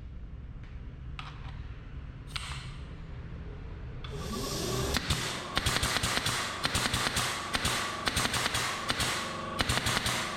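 Air compressor motor spinning up with a rising whine about four seconds in, then rapid, irregular sharp cracks over a steady whine.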